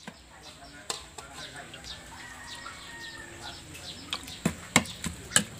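Metal spoon clinking and scraping against a ceramic bowl while a thick, wet herb-and-frog dip is stirred, with a few sharp clinks in the second half. Faint bird calls in the background.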